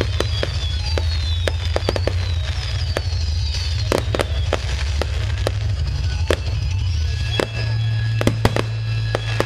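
A fireworks display going off: a rapid, irregular run of sharp bangs and crackling bursts, several a second.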